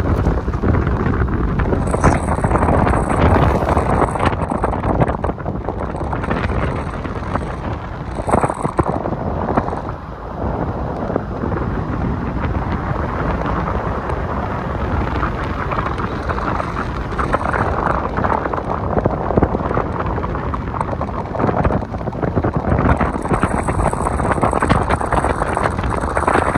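Wind buffeting a phone's microphone held out the window of a moving car: a loud, gusting rush.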